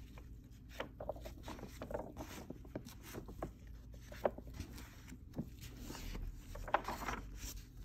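Thin pages of a large old dictionary being turned by a gloved hand: paper rustling and crackling in soft, scattered ticks, with a few sharper crackles.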